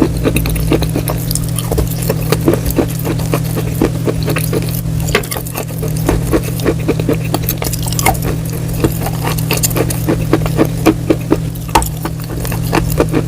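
Close-miked crunching of someone chewing something crisp, a dense run of sharp cracks several times a second, over a steady low hum.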